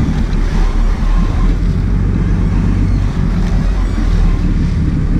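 Sport-fishing boat's engine running with a steady low rumble, mixed with wind on the microphone.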